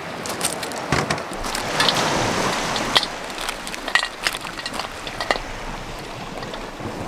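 Beach pebbles crunching and clicking as someone steps and kneels on them, with a few sharper clicks and knocks, over a steady hiss of wind and surf.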